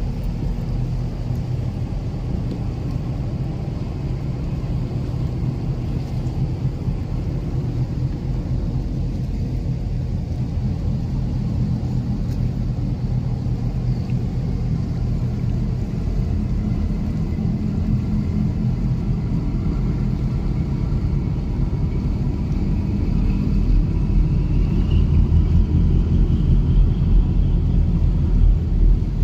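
Steady low engine rumble that grows gradually louder over the last several seconds.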